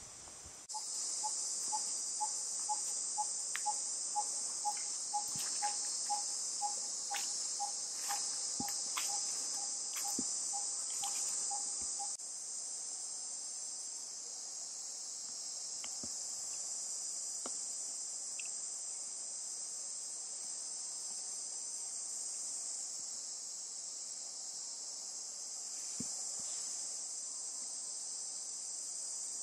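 Steady high-pitched drone of an insect chorus. For the first twelve seconds a repeated piping note sounds about three times a second, falling slightly in pitch, with a few faint clicks scattered through.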